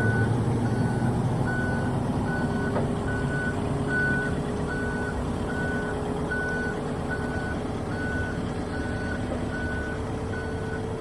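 Heavy-equipment backup alarm beeping steadily, a short beep about every 0.8 seconds, over a diesel engine running.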